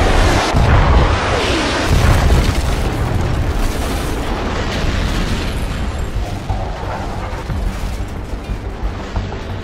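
Explosion sound effects: heavy booms and rumbling, loudest at the start and slowly dying away, with music underneath.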